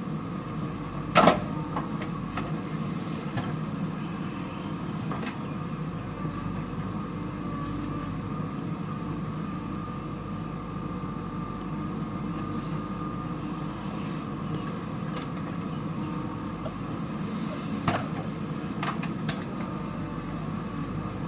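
JCB 3DX backhoe loader's diesel engine running steadily with a hydraulic whine, while it digs and loads mud. Two loud knocks ring out, one about a second in and one near the end.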